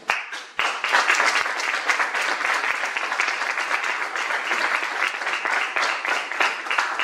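Audience applauding: a dense patter of many hands clapping that starts suddenly, dips briefly about half a second in, then carries on steadily and stops near the end.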